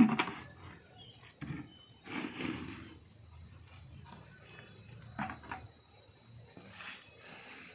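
A steady, high-pitched insect call, with a sharp knock at the very start and a few short scrapes and rustles of dry fermented goat manure being scooped with a plastic scoop into a plastic paint bucket.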